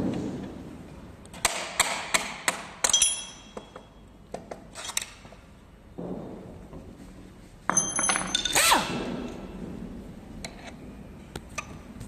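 Metal parts of a spring-loaded lever assembly knocking and clinking as it is taken apart by hand. There is a thunk at the start, then two clusters of sharp metallic clinks with brief ringing, about a second and a half in and again about eight seconds in.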